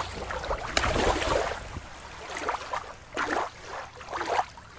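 Shallow water lapping and splashing around a toy being dipped at the water's edge; about two seconds in the sound changes to intermittent gurgling water in short bursts.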